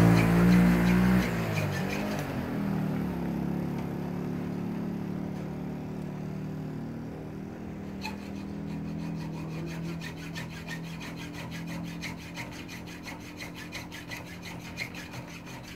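An engine running, which cuts off about a second in and leaves a fading hum. Then, from about eight seconds in, a fast run of short scraping strokes from hand work on a small object, like a file or rasp on wood.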